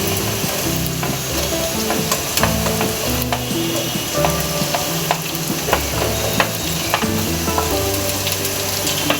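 Chopped capsicum and vegetables sizzling in hot oil in a pan for fried rice, with a spatula scraping and clicking against the pan as they are stirred.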